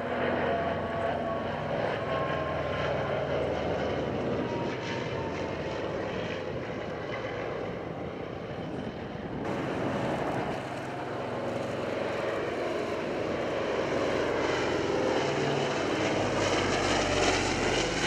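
Lockheed Super Constellation's four Curtiss-Wright R-3350 18-cylinder radial engines and propellers droning steadily in a flyby, with a faint tone that slowly falls in pitch over the first several seconds.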